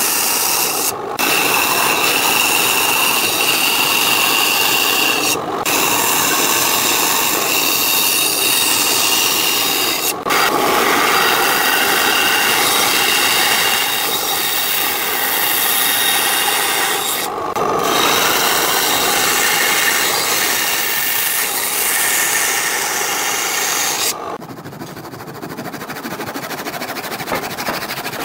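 Bandsaw running and cutting through wooden boards: a steady whine with the rasp of the blade in the wood, dropping out briefly a few times. About four seconds from the end it gives way to the quieter strokes of a hand saw cutting a small pine block.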